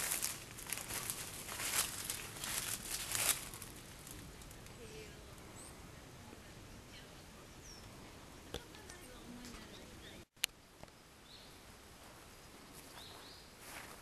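Footsteps crunching through dry fallen leaves for the first three seconds or so, then quiet outdoor ambience with a few faint bird chirps. The sound drops out for an instant about ten seconds in, with a click just after.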